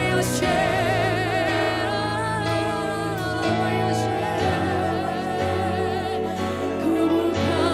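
Live worship music: keyboard and band holding sustained chords, with singers on long notes sung with vibrato in the first few seconds.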